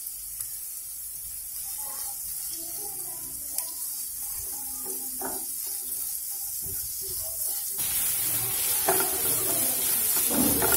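Chopped onions sizzling in hot oil in a non-stick kadai while a wooden spatula stirs and scrapes them; the frying grows louder about eight seconds in.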